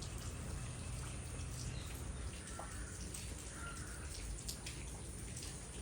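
Steady rain falling, with many close drops and drips ticking irregularly. Two short, faint high calls sound about halfway through.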